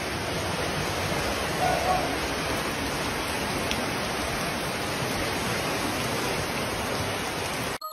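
Floodwater rushing along a street after heavy rain: a steady, even rush of moving water that cuts off abruptly just at the end.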